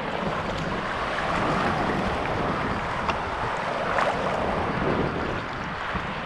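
Sea kayak under paddle: a steady wash of water splashing and lapping around the paddle and hull, with a few brief splashes. Wind rumbles on the microphone underneath.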